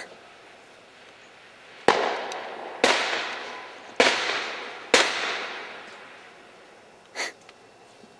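Four loud, sharp bangs about a second apart, each echoing and fading away over a second or more, then a fainter bang near the end: New Year's Eve fireworks or gunfire going off.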